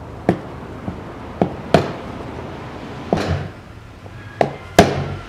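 Small hammer tapping a tube held in pliers, driving it into the cracked outlet pipe of a plastic coolant expansion tank. About seven sharp, unevenly spaced taps, the last one near the end the loudest.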